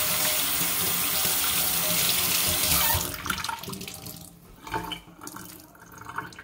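Kitchen faucet running into a stainless steel sink as a piece of cotton fabric is rinsed under the stream. The water is shut off about three seconds in, followed by a few light knocks and handling sounds.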